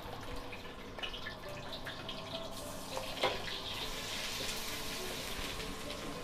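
Wok on a gas wok burner with a ladle clinking in the pan; about two and a half seconds in, ingredients dropped into hot oil start to sizzle, a hiss that builds and holds.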